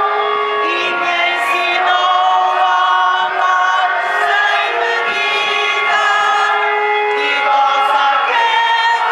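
A group of voices singing a slow religious hymn, moving through long held notes.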